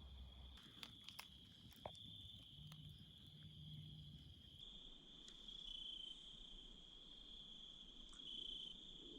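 Faint, steady high-pitched chirring of crickets in an evening insect chorus, with a few faint clicks between about one and two seconds in.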